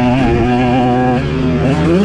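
KTM 125 single-cylinder two-stroke dirt bike engine running under load, holding a fairly steady note and then revving up sharply in pitch near the end.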